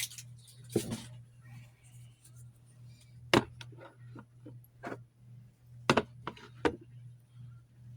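Small skincare bottles and jars clicking and knocking as they are handled and set down, about seven sharp knocks scattered through, the loudest a little past a third of the way in and again about three quarters through. A steady low hum runs underneath.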